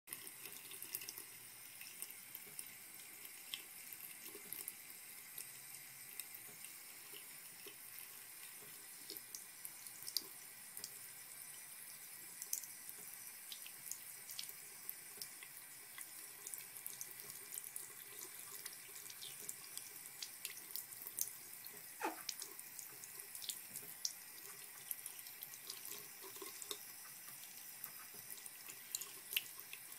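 Water running quietly from a tap, with many small drips and splashes scattered through it, while a pet alligator is washed.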